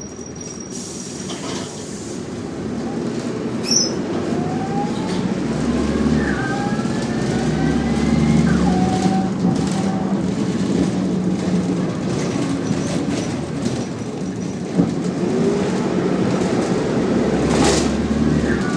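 Optare Solo single-deck bus heard from on board, its engine and drivetrain running steadily under way with a low rumble. A whine climbs in pitch between about four and nine seconds in, and there are a couple of brief knocks.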